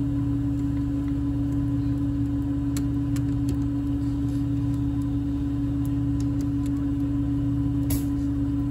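A steady low hum runs throughout, with a few faint metallic clicks from a socket on an extension turning the clutch pressure-plate bolts by hand; one sharper click comes near the end.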